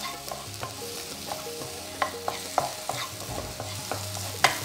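Chopped red onions sizzling in coconut oil in a non-stick wok, stirred with a wooden spoon, with small scattered pops from mustard seeds in the hot oil and a sharper click near the end.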